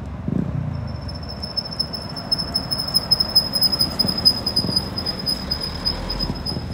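City street ambience: a low traffic rumble with a steady high-pitched whine that sets in about a second in.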